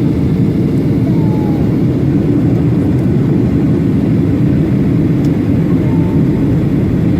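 Steady drone of a Boeing 737-800 in flight: its CFM56-7B jet engines and rushing airflow, a constant low noise.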